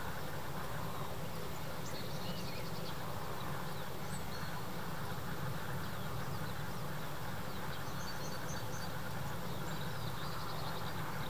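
Outdoor ambience: a steady low background rumble, with faint high chirps and short trills of small songbirds now and then.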